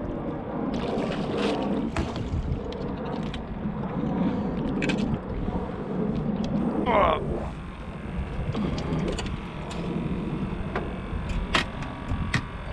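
Wind and water noise around a small fishing boat, with scattered clicks and knocks and one short wavering tone about seven seconds in.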